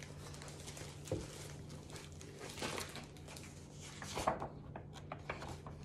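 Faint rustling and handling of a hardcover book and its paper pages as it is moved and its place found, with a soft knock about a second in, over a low steady hum.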